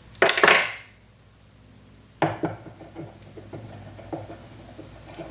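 Small metal jewelry tools being handled on the bench: a loud clatter near the start, then a run of light clicks and taps.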